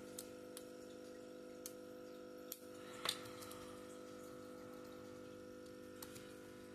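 A few faint, sharp clicks and light taps, the clearest about three seconds in, from small screws being worked loose on a laptop's cooling fan. A steady hum runs underneath.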